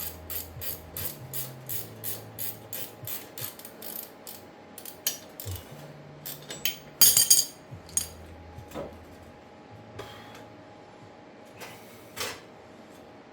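Ratchet wrench clicking in an even rhythm, about three clicks a second, as the hub assembly's mounting bolts are backed out. The clicking thins to scattered clicks, with a loud brief metallic clatter about seven seconds in.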